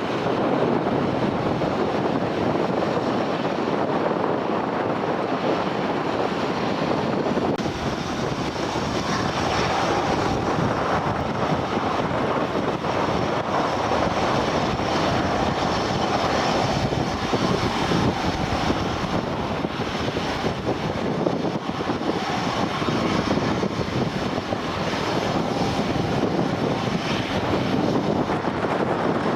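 Airplane engine noise: a steady rushing sound with no sharp changes, carried on wind at the airfield.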